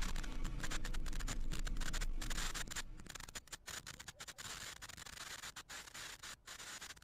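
Falcon 9's nine Merlin engines during ascent, heard as a crackling rumble with hiss and many brief dropouts. The low rumble falls away about three seconds in, leaving a fainter crackling hiss.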